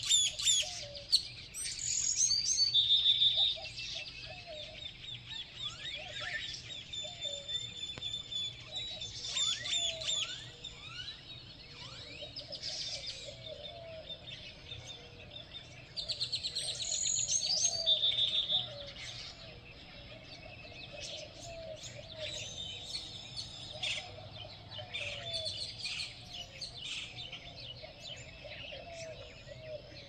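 Morning chorus of wild songbirds: many overlapping chirps and songs. A loud, rapid trill comes in about two seconds in and again around sixteen seconds, with lower, softer warbling notes running underneath.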